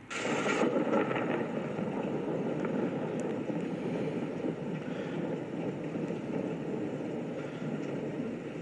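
Rain sound effect from an animated cartoon, played through a TV speaker: a steady rushing hiss that starts abruptly and is brighter for the first half second.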